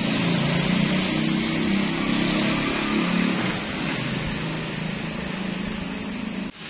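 A motor vehicle engine hums nearby over a steady rushing hiss. The engine sound weakens after about three and a half seconds.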